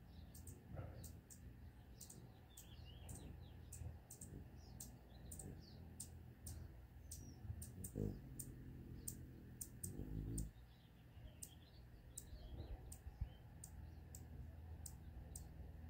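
Hummingbird chicks in the nest giving faint, thin, very high-pitched ticking calls, roughly two a second, with a few short squeaky chirps, as they beg for food. Two brief low rumbles of noise come around the middle.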